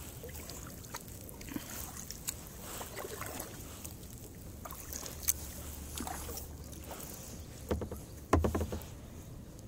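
Kayak paddling: the paddle blades dip and splash, and water drips off them, with scattered small clicks. There is a louder cluster of splashes and knocks about eight seconds in.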